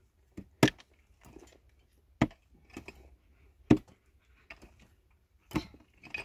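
A series of sharp knocks: four loud strikes spaced about one and a half to two seconds apart, with fainter taps between them.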